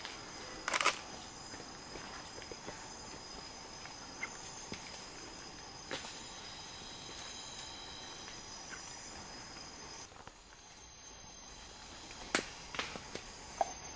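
Rainforest insects making a steady, high-pitched drone, with a few sharp snaps in the undergrowth; the loudest comes about a second in, and the drone thins out about two-thirds of the way through.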